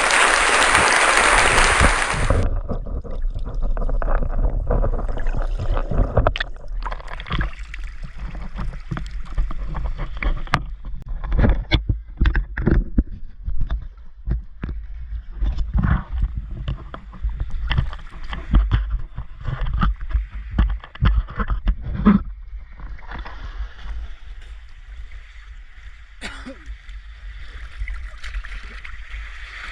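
Sea water sloshing and splashing right at the microphone, with irregular knocks and a low rumble. A loud rush of water fills the first couple of seconds, then cuts off.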